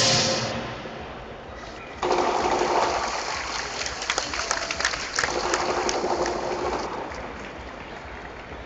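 Lion dance drumming fades out at the start, then about two seconds in a large crowd bursts into applause. The applause dies down after about five seconds.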